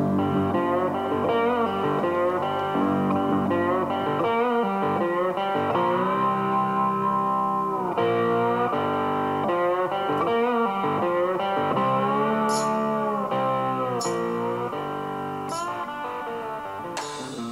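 Background guitar music with gliding notes, getting quieter over the last few seconds.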